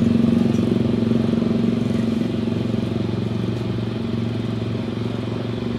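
A steady engine drone with a low hum in it, slowly fading.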